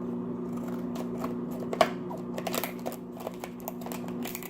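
Scissors cutting open a sealed packet: a run of irregular snips and clicks, the sharpest a little under two seconds in, over a steady low hum.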